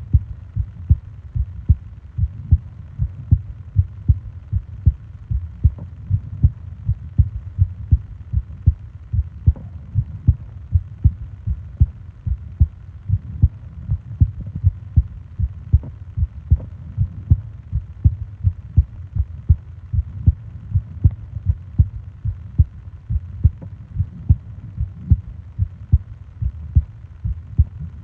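Human heartbeat recorded close to the chest: a steady, even rhythm of low, soft thumps.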